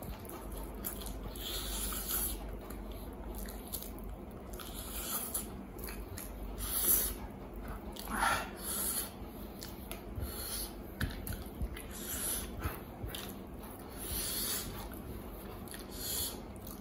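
Close-miked eating sounds: wet chewing, smacking and finger-sucking as a man eats spicy mutton curry and rice with his hands, with breathing between mouthfuls. The sounds come in short, irregular bursts, with a brief falling slurp-like sound about eight seconds in.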